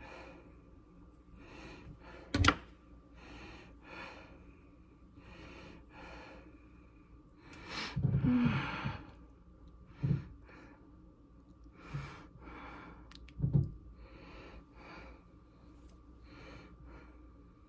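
Curling iron being worked through hair: faint rustling and handling noises, with a sharp click about two and a half seconds in and a few soft knocks later, over a faint steady tone. A breathy sound comes about eight seconds in.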